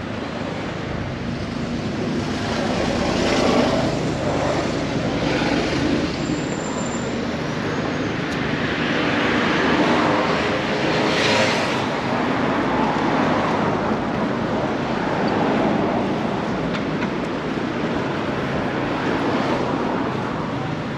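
Street traffic: a steady wash of engine and tyre noise from passing vehicles, swelling louder several times as vehicles go by.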